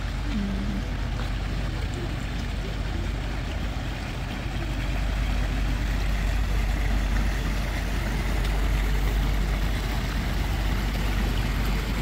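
Motor cruiser's engine running as the boat moves slowly along the channel: a steady low rumble that grows a little louder as it comes closer.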